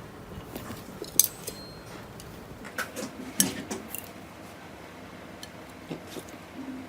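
Scattered light clinks and taps of eating utensils against a bowl: a sharp click about a second in, then a few more between about three and four seconds in.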